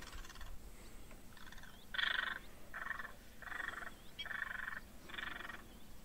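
Frogs calling: a run of about seven rattling croaks, each roughly half a second long, repeating a little faster than once a second. The loudest comes about two seconds in.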